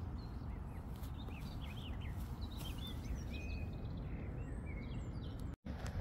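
Small birds singing: a scatter of quick chirps and short whistles between about one and five seconds in, over a steady low rumble of wind on the microphone. The sound drops out for an instant near the end.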